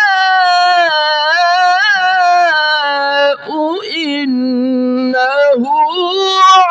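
A man's voice reciting the Quran in melodic tilawat, holding and ornamenting one long drawn-out vowel with a wavering, gliding pitch. It breaks briefly about three seconds in, holds a low steady note, then rises again as the next word begins near the end.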